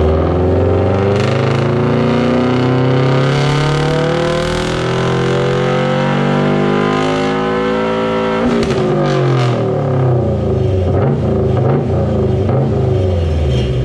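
Turbocharged 2.5-litre flat-four of a 2017 Subaru WRX STI, running through a catless downpipe and a muffler-delete catback, making a full-throttle pull on a hub dyno. The engine's pitch climbs steadily for about eight and a half seconds, then the throttle closes and the revs fall away with a scatter of pops from the exhaust.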